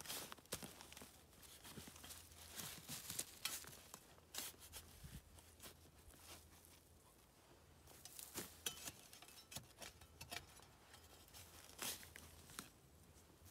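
Faint rustling and crackling, with many scattered small clicks and snaps and a louder crackle about twelve seconds in.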